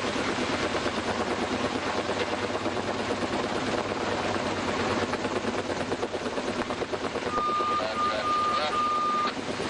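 Kaman K-MAX helicopter's intermeshing twin rotors chopping steadily overhead, a dense fast pulsing rotor noise. About seven seconds in, a steady high-pitched beeping tone starts alongside it, with short breaks.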